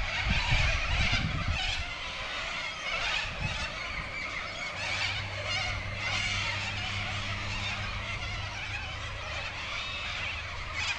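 A large flock of birds calling continuously, many overlapping calls at once.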